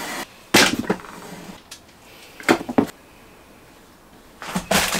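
Foil-backed butyl sound-deadening sheets crackling as they are handled and laid out on a board, in three short sharp bursts a couple of seconds apart.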